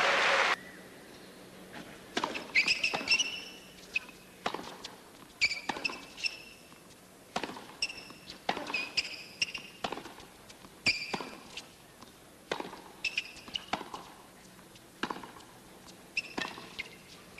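Tennis rally on a hard court: sharp knocks of the racket striking the ball, coming in clusters every second or two, with sneakers squeaking on the court between strokes. It opens with loud crowd noise that cuts off abruptly about half a second in.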